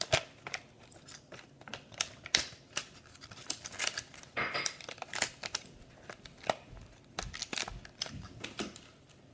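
Toys being handled and put away at close range: irregular clicks, taps and crinkly rustling.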